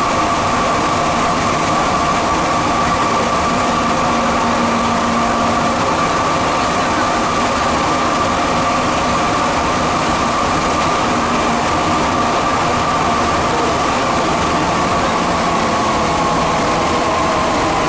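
Santiago Metro Line 2 train running between stations, heard from inside the car: a steady running rumble with a high steady whine that drops slightly in pitch near the end.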